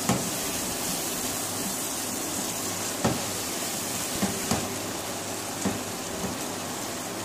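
Chicken, tomatoes and spices frying in a nonstick pan, a steady sizzle with now and then a short knock of a silicone spatula against the pan as the mix is stirred: the bhuna stage, the masala being fried down.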